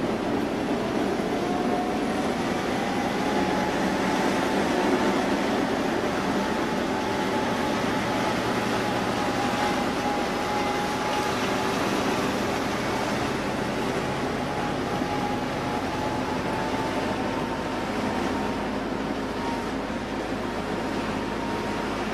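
Steady engine and road noise of a WWII-era military vehicle, heard from on board as it drives in convoy, with a thin whine that rises slightly in pitch in the first few seconds and then holds.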